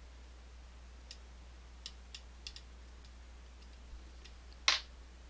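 Scattered small clicks and ticks of lock-picking tools working the pins of an M&C Move lock, with one much louder, sharper click about four and a half seconds in.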